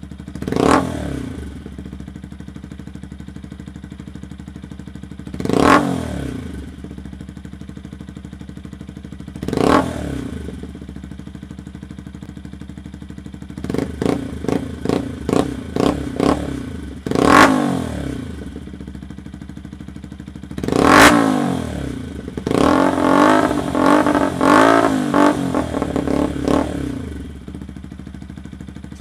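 Yamaha YZF-R125's 125 cc single-cylinder four-stroke engine, through a LeoVince exhaust with the baffle removed, idling and revved in sharp throttle blips. It is very loud. There are three single revs, then a run of quick blips, two bigger revs, and a longer burst of rapid blips before it drops back to idle.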